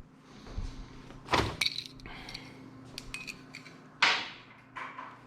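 Light clinks and knocks of motorcycle parts being handled during air-filter work, with a louder knock about four seconds in.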